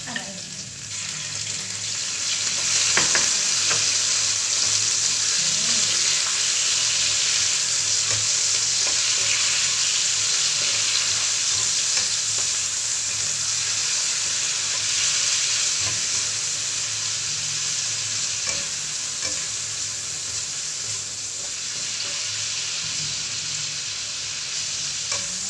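Meat sizzling in hot oil in a nonstick wok on a gas burner just after the pieces are tipped in, with a red spatula stirring and scraping through it. The sizzle swells about two seconds in and eases a little toward the end.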